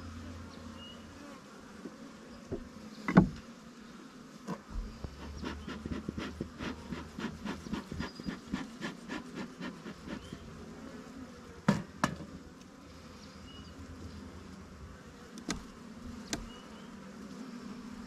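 Honeybees buzzing in a steady hum over an open hive. Several sharp knocks, the loudest about three seconds in and a close pair later, and a run of quick clicks, about three a second, through the middle.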